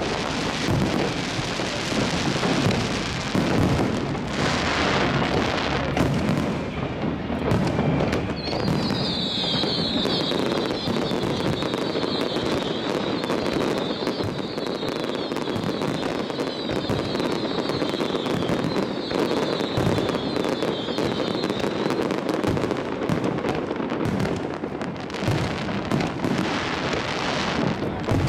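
Fireworks display heard at close range: a dense, unbroken run of shell launches, bangs and crackling bursts. Through the middle dozen seconds a high, wavering whistle-like sound runs over the bangs.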